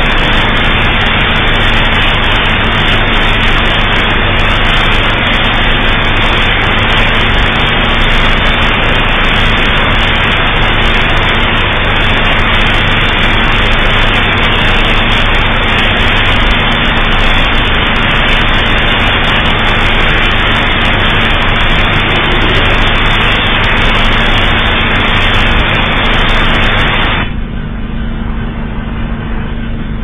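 Loud, steady static-like hiss over a low buzzing hum, the audio of a mock emergency alert broadcast. Near the end the hiss cuts off suddenly, leaving the hum quieter.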